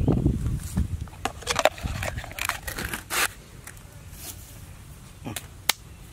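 Scraping, rustling and sharp clicking noises, irregular and close by, with a low thump at the start and a couple of sharp clicks near the end.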